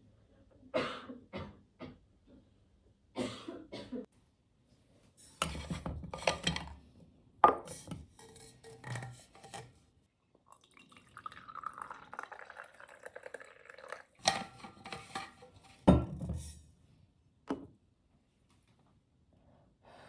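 Kitchenware being handled: cups, spoons and dishes clinking and knocking in a string of separate strikes, with a softer rushing sound lasting a few seconds around the middle.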